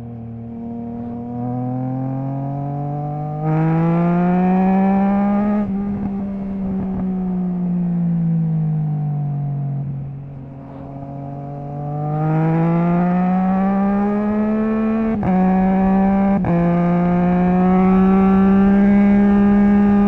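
Triumph Trident 660 inline three-cylinder engine through a Zard stainless full exhaust with the baffle removed, pulling up through the revs, then shut off and coasting down before accelerating hard again. In the second half, two quick upshifts a second or so apart each cut the sound for an instant, typical of the quickshifter's brief ignition cut.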